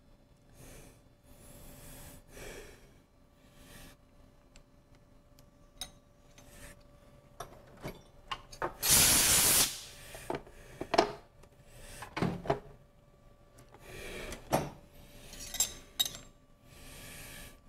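Hand work with small sheet-aluminum parts and tools at a milling machine: rubbing, scraping and sharp metal clicks and clinks, with one loud hissing rush lasting about a second a little past the middle.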